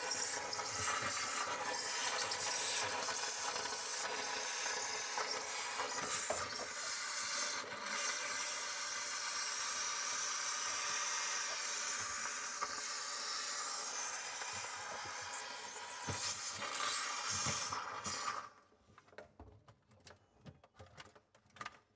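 Pur Steam handheld steamer jetting steam through its angle nozzle in a steady hiss, melting the ice around a refrigerator's evaporator defrost drain. It cuts off suddenly about 18 seconds in, leaving a few faint taps.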